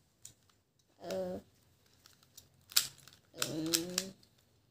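Plastic pieces of a triangular Rubik's puzzle clicking and rattling as it is twisted by hand. Two short hums or murmurs from the child come in about a second in and again near the end.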